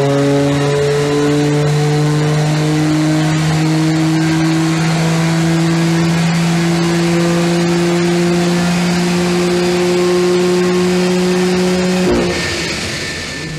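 BMW M4's twin-turbo straight-six at full throttle on a chassis dynamometer during a power run, its revs climbing slowly and steadily under load. About twelve seconds in, the throttle is lifted and the engine note drops away.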